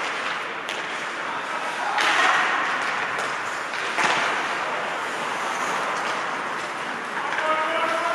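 Ice hockey play on a rink: a steady scraping hiss of skates on the ice with sharp clacks of sticks and puck, the clearest about two and four seconds in.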